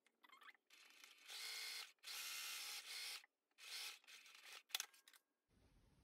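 Electric sewing machine running in several short stitching runs as a folded fabric strap is top-stitched down one side, followed by a few sharp clicks near the end.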